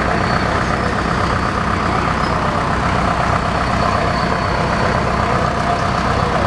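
Farm tractor engine running steadily at a constant speed, driving a sawmill by flat belt, with a faint high steady whine over the engine.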